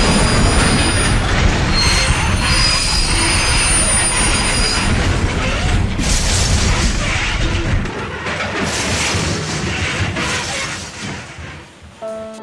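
Train running on the rails: a loud, dense rattling rumble with thin high wheel squeals, thinning out in the second half and fading away near the end.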